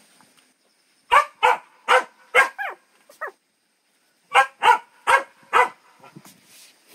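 A dog barking in two runs: about five barks, a pause of about a second and a half, then four more.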